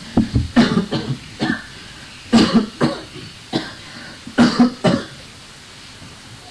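A series of short coughs and throat clearing, in loose bunches over about five seconds, then stopping.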